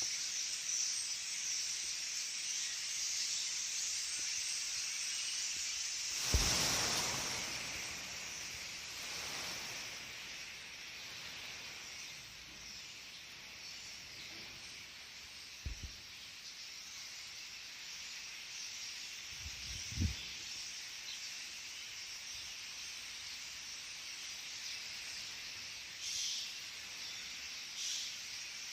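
A large flock of common starlings chattering together in a dense, hissing wash of calls. About six seconds in there is a sudden loud rush, after which the chatter is quieter. There are two short low thumps later on.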